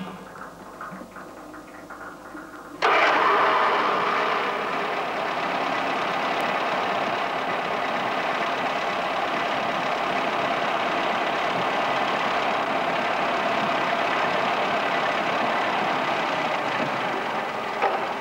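Engine noise cuts in suddenly about three seconds in, then runs steadily and evenly.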